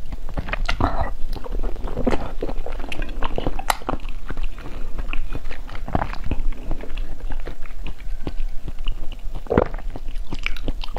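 Ice being bitten and chewed close to the microphone: a dense, irregular run of sharp cracks and crunches.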